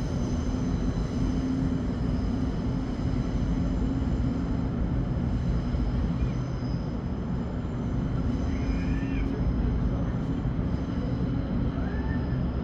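Steady low rumble of a train with a constant hum and faint high-pitched whine over it.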